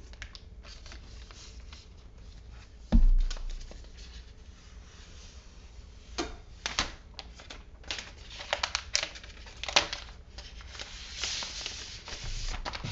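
Unboxing handling noise: one loud thump about three seconds in, then a run of sharp clicks, crinkles and tearing as the plastic wrapping is pulled off a new iPad Pro.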